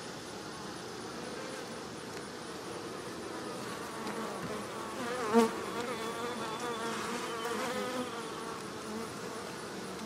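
Honey bees buzzing around an open hive box. The hum wavers in pitch and grows louder from about four seconds in, with a brief loud swell near the middle.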